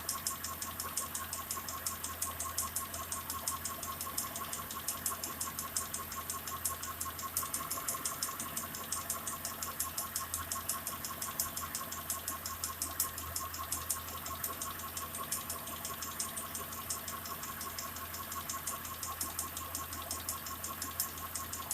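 Mitsubishi Pajero 4 engine idling hot with a fast, even ticking, heard from the front lower timing-belt area near the pulley. It appears only once the engine is warm and began after the head gaskets were replaced. A new timing-belt tensioner and idler roller have not cured it, and its cause is unknown.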